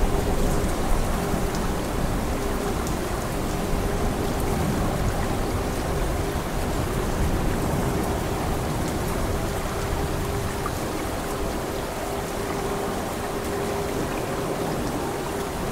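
Steady rain falling, an even hiss of drops, with a low thunder rumble underneath that dies away within about the first second.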